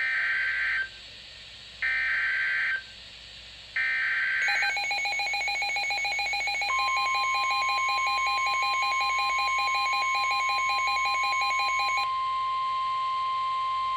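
Emergency Alert System weather warning tones: three short bursts of screechy SAME header data, then a fast-pulsing electronic beeping from about four and a half seconds. Near seven seconds the steady, single-pitched NOAA Weather Radio warning alarm tone joins in and holds on after the beeping stops near twelve seconds.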